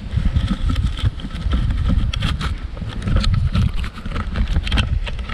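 Loud rumbling handling noise from a hand-held camera being rubbed and bumped, mixed with many small crackles and snaps of twigs and leaves as someone pushes through dense willow scrub.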